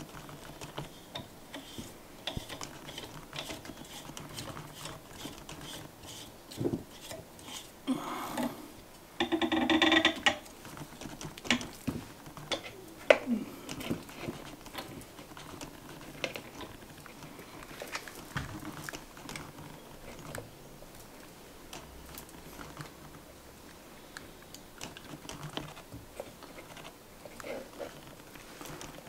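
Clicks, knocks and rattles of a plastic microphone shock mount and boom arm being handled and fitted together, with one louder stretch of rattling about nine to ten seconds in.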